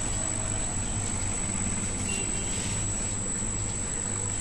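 Steady low hum of aquarium air pumps and filters running, with a constant thin high whine over it.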